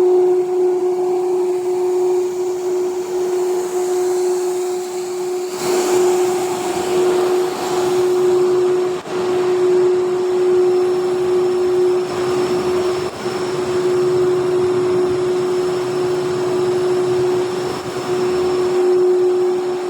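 Twin-screw extruder line running steadily while producing wood-plastic composite profile, a constant mechanical hum with a single steady tone over machine noise. A brief louder rush of noise comes about six seconds in.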